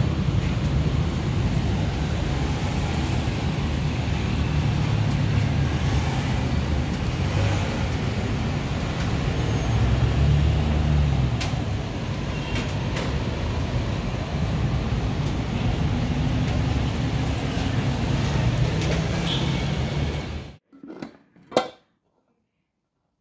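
Steady rumble of street and traffic noise with a few faint clicks. It cuts off abruptly about twenty seconds in, and a few soft knocks follow before near silence.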